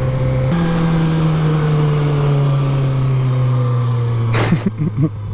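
Suzuki GSX-R600 inline-four engine running under way. Its pitch steps up about half a second in, then drops steadily as the bike slows. A short burst of noise comes near the end.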